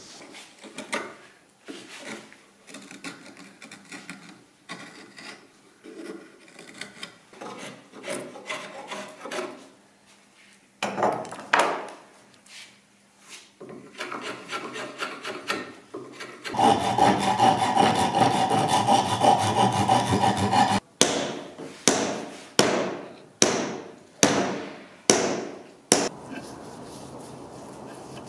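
Hand tools rasping and scraping the wooden handle of an axe in repeated strokes: scattered strokes at first, a few seconds of continuous scraping in the middle, and about six separate strokes near the end.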